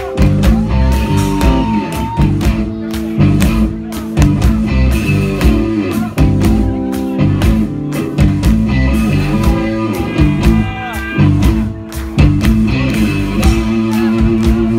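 Instrumental intro of a rock song: a band with guitar and a steady drum beat.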